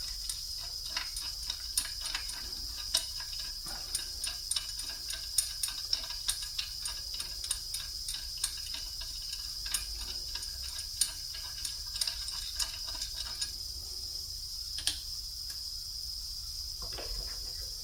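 Scattered light clicks and taps, irregular and several a second, from hands-on work at a milling machine setup, over a steady high-pitched whine.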